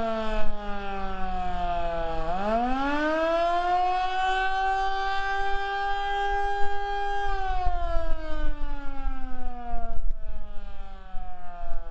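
Federal Signal Model 2 outdoor warning siren sounding the Attack signal: its wail falls, sweeps quickly back up about two seconds in, holds high for a few seconds, then winds down again. Wind buffets the microphone underneath.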